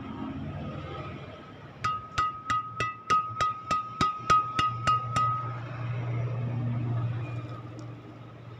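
Strung badminton racket's BG66 string bed, tensioned at 28 lbs, tapped about a dozen times in quick succession, each tap pinging at the same clear pitch. A low steady hum follows.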